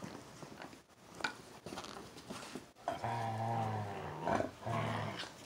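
Siberian husky growling during rough play: scuffling on the dog bed, then a long low growl about halfway through and a shorter one near the end.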